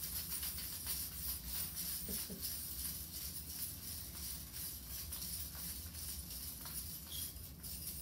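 Stainless steel bird toy jingling and clinking as it is dangled and shaken in front of a cockatoo: a quick, irregular run of small metallic jingles.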